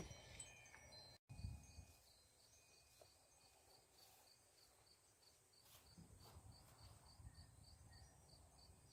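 Near silence with faint cricket chirping, an even pulse of about three chirps a second.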